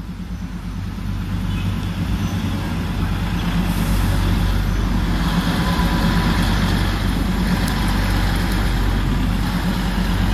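Darjeeling Himalayan Railway narrow-gauge diesel locomotive running past with its coach, a steady low engine drone that grows louder over the first few seconds as it approaches and then holds.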